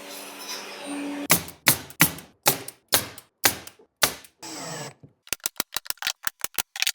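Woodworking on French cleats: a string of about eight sharp, ringing knocks, evenly spaced, then a quick run of sharp clicks, about eight a second.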